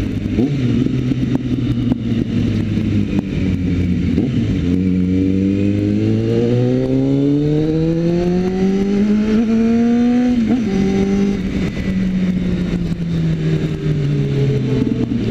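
Suzuki GSX650F's inline-four engine running at a steady cruise, then rising in revs for about six seconds under acceleration. The revs drop suddenly at a gear change about ten seconds in, then fall slowly as the bike eases off, all under a steady rush of wind noise.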